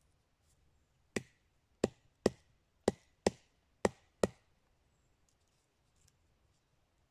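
A wooden baton striking the spine of a bushcraft knife driven into a log, splitting it by batoning. There are seven sharp knocks over about three seconds, roughly two a second.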